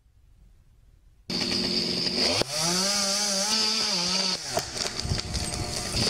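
Chainsaw running, cutting in abruptly about a second in. Its engine holds a steady note for about two seconds, then falls away, followed by a few scattered knocks.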